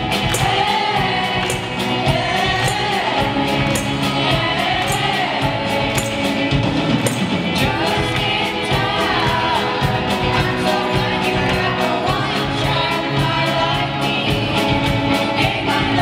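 A youth vocal ensemble singing a song together into microphones, backed by a live band of keyboard and drum kit keeping a steady beat.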